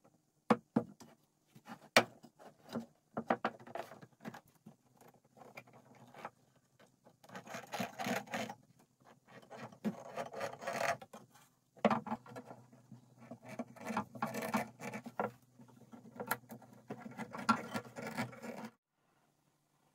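Hands working a wooden glue-up: thin wooden strips rubbing and shifting against each other, with sharp knocks and clicks as bar clamps are fitted and tightened onto the laminated strips. The sound stops abruptly near the end.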